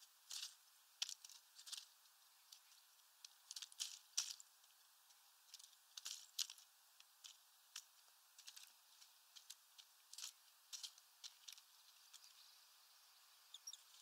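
European starling pecking through sunflower seeds in a plastic feeder tray: irregular sharp taps and clicks of beak on seed husks and plastic, several a second in uneven clusters.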